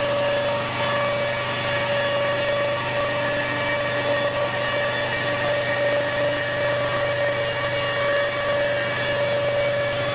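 CNC stone router's spindle motor running with a steady, unchanging whine over a low hum and hiss.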